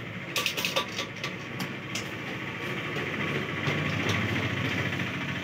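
TVS motorcycle's single-cylinder engine running at idle, getting somewhat louder a few seconds in. Several sharp clicks and knocks come in the first two seconds.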